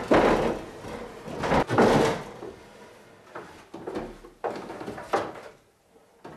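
Footsteps on wooden stairs and a bicycle frame bumping and rattling as it is carried down them: a run of irregular thumps and clatters, loudest in the first two seconds and lighter toward the end.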